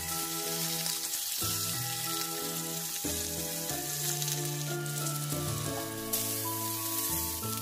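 Thick slabs of pork belly sizzling steadily as they sear in a hot frying pan, over background music with held melodic notes.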